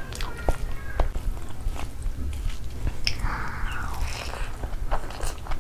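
Close-miked chewing and wet mouth clicks of a person eating a handful of Schezwan fried rice mixed with curry gravy.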